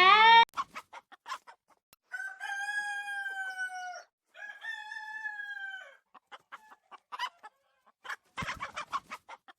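Chickens clucking in short, quick runs, with a rooster giving two long, drawn-out crows in the middle.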